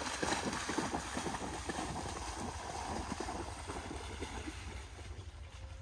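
A German shepherd and a Labrador retriever running and splashing through a shallow water channel, a quick irregular patter of splashes that fades as the dogs get farther away. Wind rumbles on the microphone.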